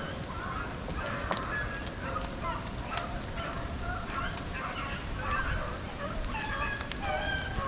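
A pack of rabbit-hunting dogs baying in overlapping calls while running a rabbit, with scattered clicks and crackles close by.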